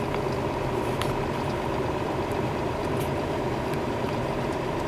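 Steady engine and road noise heard inside a moving truck's cab, with a faint steady whine and a couple of light ticks.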